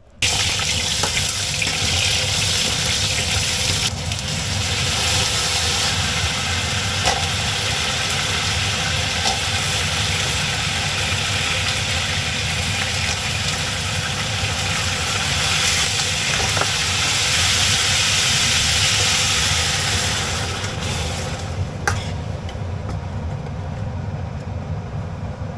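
Green beans frying in hot oil in a stainless steel wok, with a loud, steady sizzle that starts suddenly and dies down to a quieter hiss about 21 seconds in. A low, steady hum runs underneath.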